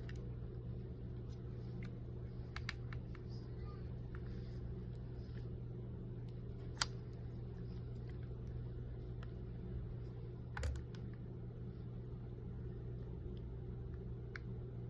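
Scattered light clicks and taps over a steady low hum, with one sharper click about seven seconds in and a soft thump near the eleven-second mark.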